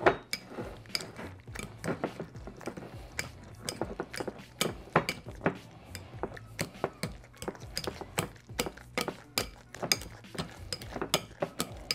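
A metal wire utensil clinking and scraping against a glass bowl while it mixes milk into mashed potatoes, with uneven clinks about three times a second.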